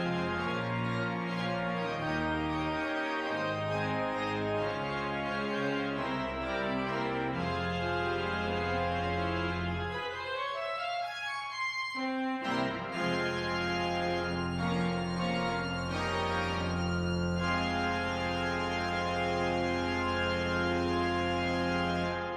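Church organ playing the postlude: full sustained chords over low pedal notes, with a quick rising run about halfway through where the bass drops out, then full chords again ending on a long held final chord that cuts off at the end.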